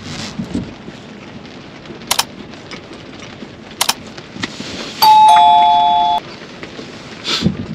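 A two-note doorbell-style ding-dong chime, a higher note then a lower one held for about a second, from a like-and-subscribe notification overlay. Under it, steady rain on the car with a couple of sharp clicks from the windshield wipers.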